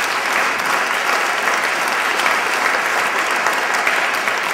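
Audience applauding loudly: a dense, steady clatter of many hands clapping.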